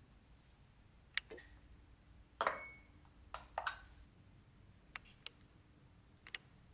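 Kitchen utensils and containers knocking and clinking as a sourdough starter is fed, a scattering of light taps, the loudest about two and a half seconds in with a brief ring.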